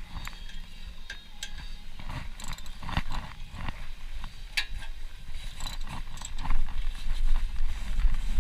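Socket ratchet clicking in short irregular runs, mixed with knocks of metal on metal, as the brake caliper bolts are tightened back down.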